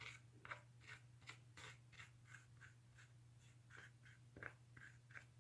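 Faint, soft scratchy strokes of a paintbrush working acrylic paint on a textured canvas: a dozen or so quick, irregular strokes over a low steady hum.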